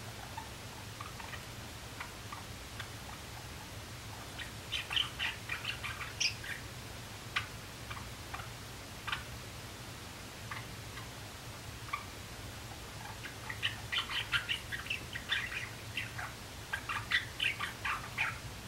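A young male Java sparrow practising its song: two runs of quick clicking and chirping notes, one about five seconds in and a longer one from about thirteen seconds, with scattered single chips in between.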